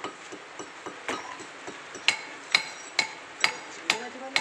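Steel claw hammers striking an old concrete floor slab to break it up: sharp, ringing metallic strikes, sparse at first, then about two a second. A steady hiss of rain sits behind them.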